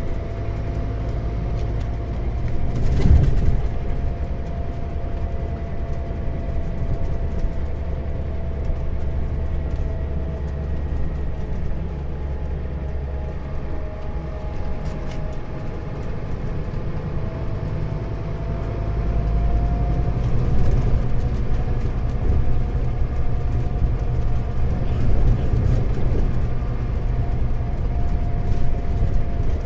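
Scania Citywide Interurban bus on the move, heard from inside the passenger cabin: a steady engine and drivetrain drone with a wavering whine. There is a sharp jolt about three seconds in, and the engine sounds louder and fuller from about two-thirds of the way through, as the bus pulls harder.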